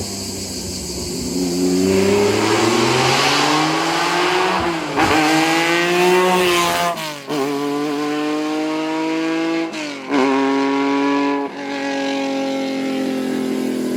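Historic racing car engine accelerating hard, its pitch climbing and then dropping sharply at each of several quick upshifts.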